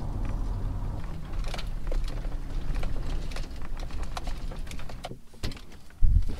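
Pickup truck rolling slowly over a gravel dirt road: a low road rumble at first, then scattered clicks and rattles from the cab. Near the end it goes quieter with a single click, then loud, gusty wind on the microphone cuts in suddenly as the cab is opened to the wind.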